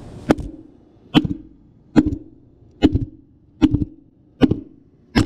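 Hammer blows on a punch driving a worn bearing out of a zero-turn mower's front wheel hub: seven sharp metal strikes at a steady pace of a little more than one a second, each followed by a brief low ring from the wheel.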